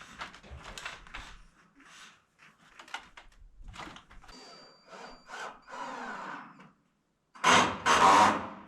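Roofing work noises: a run of short noisy bursts, then two loud bursts close together near the end.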